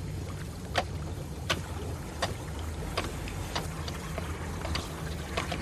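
Low, steady rumble of a boat's engine under way, with a sharp click repeating about every three-quarters of a second.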